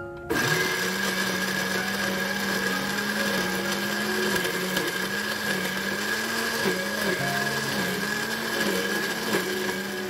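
Panasonic countertop blender switching on abruptly and running hard, grinding red chillies, shallots and lemongrass into a paste; the motor's pitch dips and recovers again and again as the chunks load the blades.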